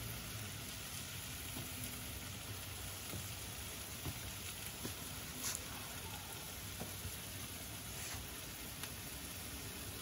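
Peppers and onions sizzling in a hot carbon steel wok on a kamado grill: a steady hiss with a few faint ticks.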